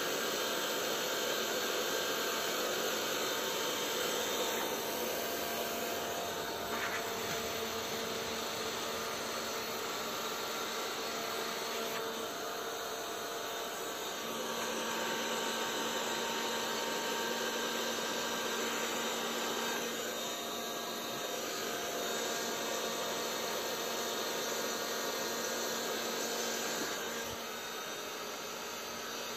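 Electric heat gun running steadily, its fan blowing hot air onto ABS motorcycle plastic to heat the weld seams. The level shifts slightly a few times as the gun is moved.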